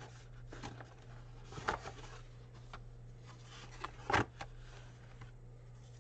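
Faint handling of trading cards and a cardboard card box, with a few light taps, the loudest about four seconds in, over a steady low hum.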